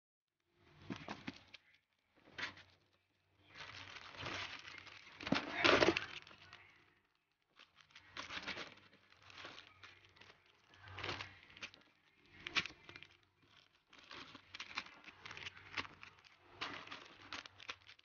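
Clear plastic packets crinkling and rustling in irregular bursts as hands handle bagged sticker sheets, memo pads and washi tape rolls. The loudest stretch comes about a third of the way in.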